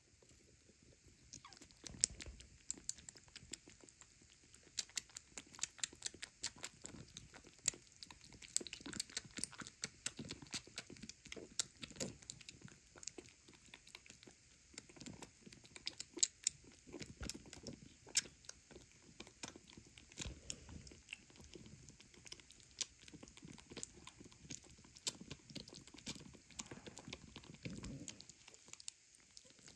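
A kitten suckling milk from a nursing bottle's rubber nipple: quick, irregular wet clicks and smacks of its tongue and mouth, with a few soft low thumps.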